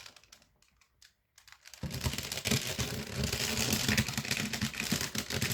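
Quick, dense plastic clicking and clattering of a Rubik's Cube being handled and turned. It starts about two seconds in, after a near-silent moment.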